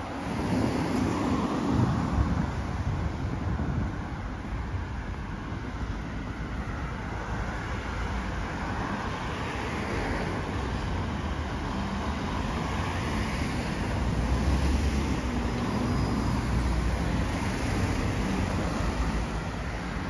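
City street traffic: cars driving past on the road, a steady low rumble of engines and tyres that swells briefly about three-quarters of the way through as a vehicle passes close.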